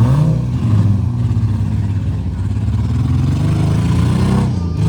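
Demolition derby cars' engines running and revving, the pitch rising and falling.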